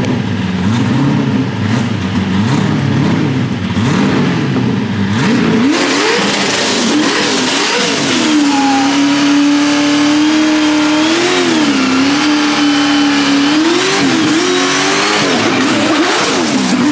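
A 1,000-horsepower drift car's engine revving up and down. From about six seconds in, the rear tyres break loose into a smoky donut: the engine is held near steady at high revs, with a loud hiss and squeal of spinning tyres. Near the end the revs swing up and down again.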